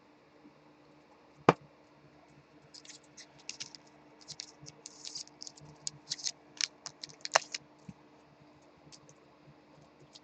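Typing on a computer keyboard: a run of quick, uneven key clicks, with one sharper, louder click about a second and a half in.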